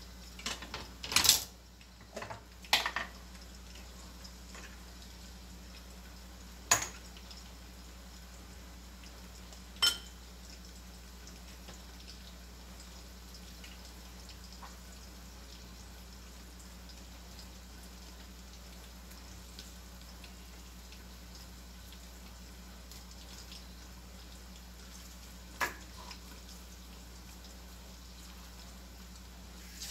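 Kitchen knife and utensils knocking on a cutting board while raw beef steak is cut and handled: a few short, sharp knocks and clicks, the loudest about a second in and a few more spread apart, over a steady faint hum.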